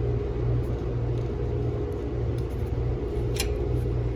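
Steady low machine hum that swells in a slow, even pulse about twice a second, with one short tick about three and a half seconds in.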